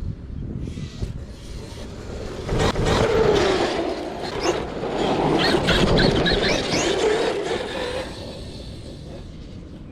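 Large 8S brushless RC monster truck driving hard nearby: a motor whine that dips and rises in pitch over tire scrubbing and squealing, loudest through the middle of the stretch, then fading as it moves off.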